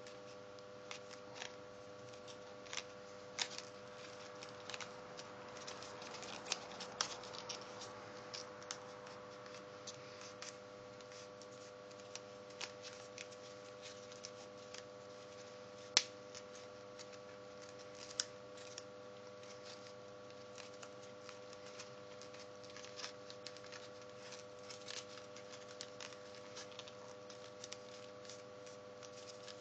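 Faint paper crinkling and crackling as fingers pinch, fold and shape stiff white origami paper: scattered small crackles and clicks, a busier stretch of rustling about six to eight seconds in, and one sharper snap about halfway through.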